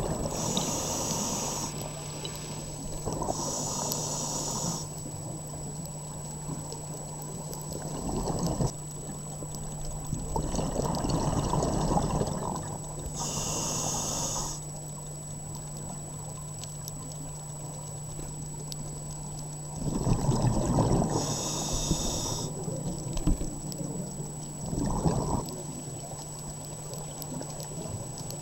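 Scuba diver breathing through a regulator underwater, heard over about four breaths: a hiss on each inhalation and a burst of bubbling on each exhalation.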